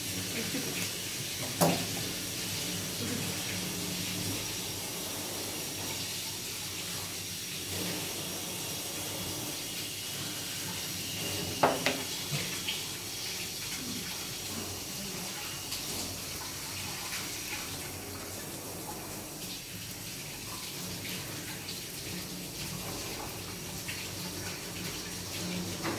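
Steady hiss of a water tap running in the background of a grooming salon, with two sharp clicks, one about two seconds in and one near the middle.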